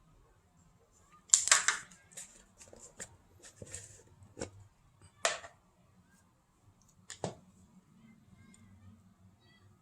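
Hands handling plastic tower-fan parts: a brief scraping rustle about a second and a half in, then a scattered run of sharp clicks and knocks.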